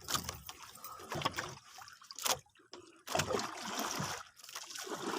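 Water splashing and trickling around a small boat in uneven spurts, with brief quiet gaps.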